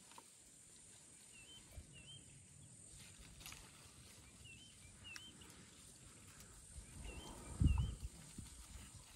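Elephants feeding on leafy branches: quiet leaf rustling, a few sharp twig snaps, and a low thud a little before the end. A bird repeats a pair of short rising call notes every two to three seconds.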